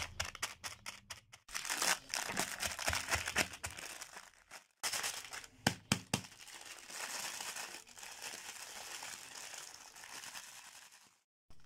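Sealed plastic packet of fried namkeen snack mix crinkling and crackling as the snack inside is crushed: sharp snaps at first while an iron rod presses on it, then continuous crackling as it is squeezed and rubbed between the hands, softening near the end.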